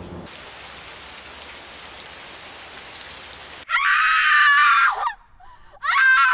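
An even hiss for about three seconds that cuts off suddenly, then two loud, shrill screams: the first about a second long, the second shorter and falling in pitch.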